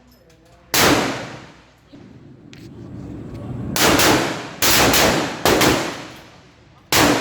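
Centrefire rifle shots, about five in all, fired at uneven intervals. Each crack dies away in a long echo.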